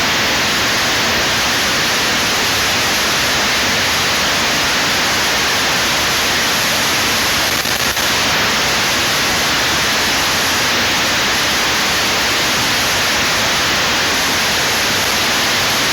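Loud, steady static hiss with no tone or rhythm, dipping briefly about eight seconds in.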